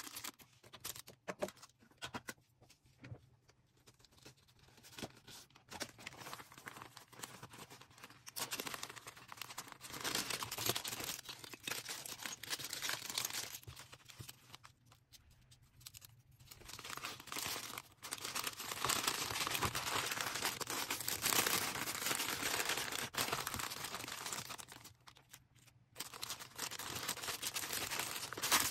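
Packaging being handled by hand: plastic and paper crinkling and rustling, with some tearing, in irregular bursts broken by short quiet pauses.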